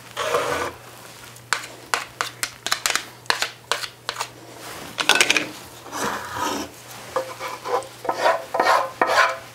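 A silicone spatula scraping thick cream sauce out of a nonstick electric skillet, with a run of short irregular scrapes and knocks and a few longer strokes.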